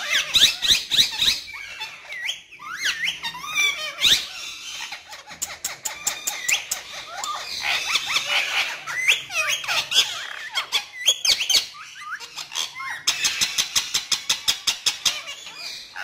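Indian ringneck (rose-ringed) parakeets calling: fast runs of sharp screeching calls, about seven a second, at the start and again in the last few seconds, with chattering and gliding whistled notes in between.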